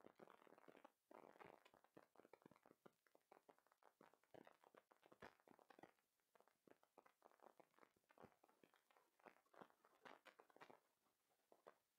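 Near silence: faint room tone with many soft scattered taps and knocks.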